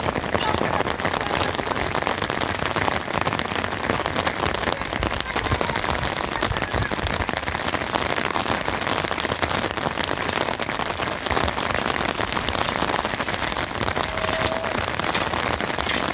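Steady rain falling, a dense, unbroken patter of drops.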